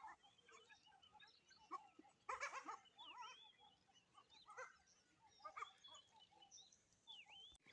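Faint goat bleat about two and a half seconds in, with a few quieter calls after it. Small birds chirp now and then.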